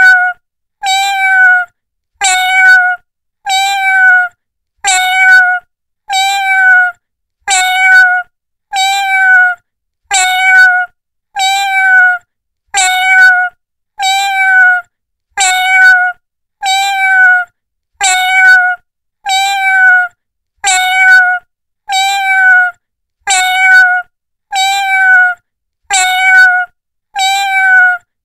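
A cat meowing, the same short meow repeated at an even pace, about one every second and a quarter.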